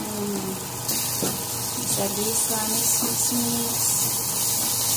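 Sliced onions sizzling in hot oil in an aluminium pot while a wooden spatula stirs them. The sizzle grows louder about a second in.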